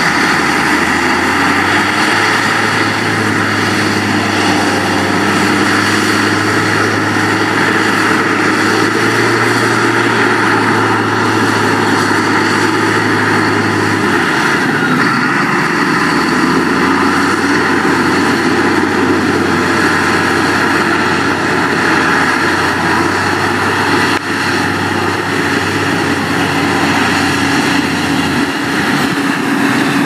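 Heavy diesel engine of earthmoving machinery running steadily. Its low engine note fades out about halfway through and returns a little lower.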